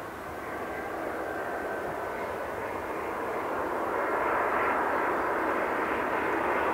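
Jet engines of an Airbus A321-200 airliner on final approach to land: a steady rushing drone that grows louder as the aircraft comes nearer, rising noticeably about four seconds in.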